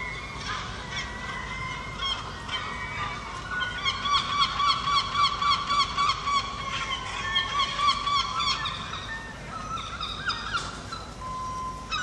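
Gulls calling, with a fast run of loud, repeated yelping notes, about three a second, from about four seconds in to past eight seconds, among other scattered calls.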